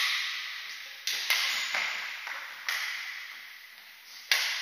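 Badminton rackets striking a shuttlecock in a rally: a string of sharp hits about every one and a half seconds, each ringing on in the hall's echo.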